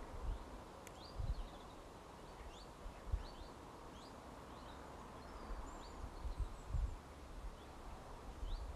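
Small birds chirping, short rising calls scattered throughout, over a steady outdoor hiss, with a few brief low thumps.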